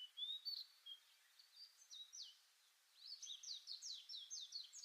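Small songbirds chirping faintly, a few scattered high chirps at first, then a quick run of chirps from about three seconds in.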